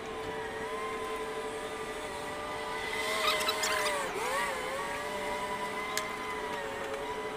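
An engine running steadily, its pitch wavering and dipping briefly, then picking up again, about four seconds in, over a steady hum. A few sharp clicks come around the middle, with one more near the end.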